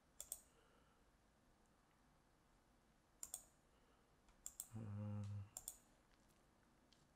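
Computer mouse clicks: a pair just after the start, one about three seconds in, and a few more between four and a half and six seconds, over near silence. A brief low hum of a voice comes around five seconds in.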